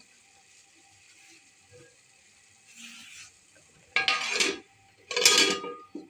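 Metal lid clattering onto a metal cooking pan: two clanks with a short ring, about four and five seconds in.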